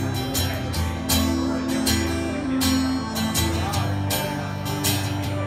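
Instrumental passage of a live country song: an acoustic guitar strums steadily while a pedal steel guitar holds long notes, some of them gliding in pitch.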